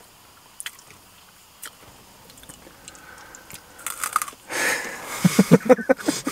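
A person chewing and crunching a snack bar, with soft scattered clicks at first and louder mouth and chewing noises over the last two seconds.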